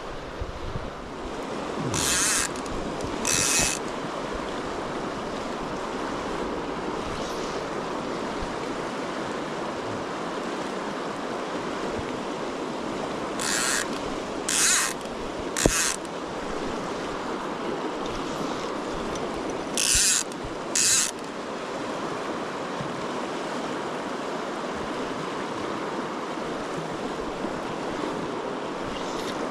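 Steady rush of flowing river water, broken by several short, sharp hissing swishes: two near the start, three in quick succession midway and two more later.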